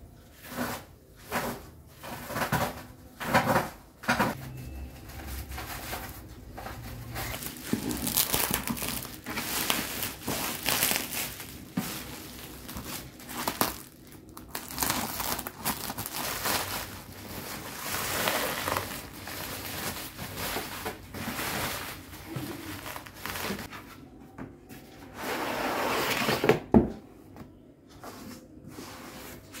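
Plastic mailer bag and bubble wrap crinkling, rustling and tearing as a parcel is cut open with scissors and unwrapped by hand, in irregular bursts; a loud rustle near the end cuts off suddenly.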